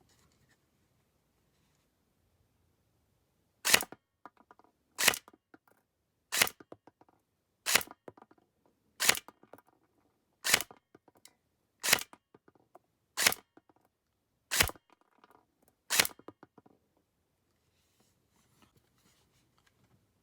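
Ten single shots from a Poseidon Punisher-1 airsoft gun, fired one at a time about every 1.3 seconds as velocity-test shots, each followed by a few faint clicks.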